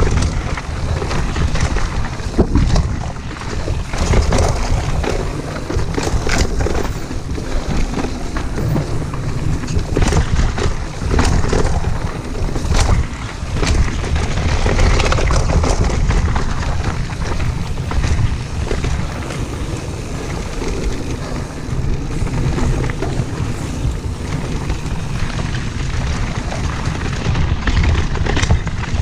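Wind buffeting a chest-mounted action camera's microphone while riding a mountain bike down a dirt trail, with tyre noise and the bike rattling and knocking over roots and bumps.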